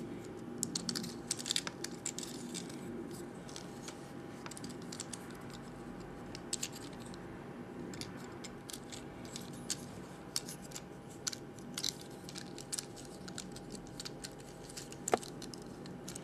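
Scattered light clicks and scrapes of a plastic Transformers Deluxe Ratchet action figure's joints being bent and posed by hand, busiest in the first couple of seconds, over a faint steady hum.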